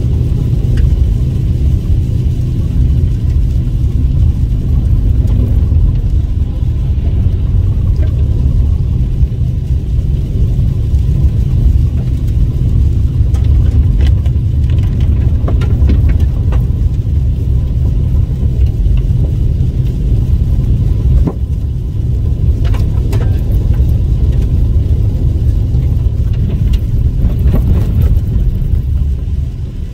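Steady low rumble of a car's tyres and engine heard from inside the cabin while driving on a gravel road, with scattered clicks and knocks throughout.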